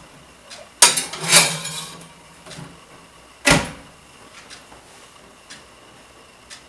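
Built-in microwave oven's door and controls being handled: a few sharp knocks and clicks, the loudest about a second in and again about three and a half seconds in, with lighter ticks between.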